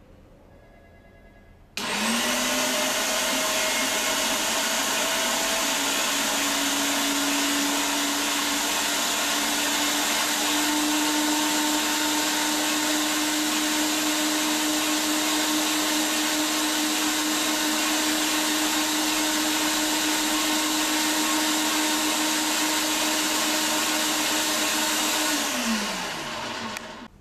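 Sunmile SMG33 electric meat grinder switched on about two seconds in and running unloaded with a loud, steady motor hum and whirr. Near the end it is switched off and winds down, its pitch falling as it stops.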